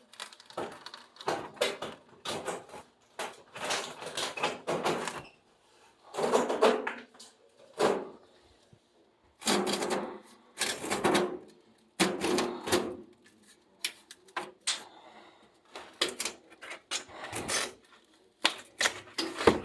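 Rusted sheet-metal furnace parts being handled, clanking, rattling and scraping in irregular bursts as someone tries to work a piece loose.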